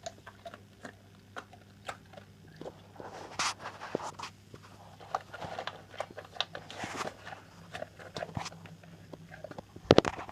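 English bull terrier cross Rhodesian Ridgeback eating his dinner: noisy, irregular chomping and crunching, with a louder flurry of bites near the end.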